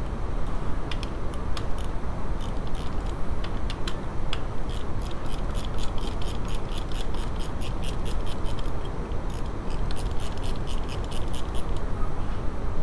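Ratchet wrench clicking in quick runs of about five clicks a second, as the rocker-arm fasteners on a VW T3 engine are undone. Under it is a steady low rumble.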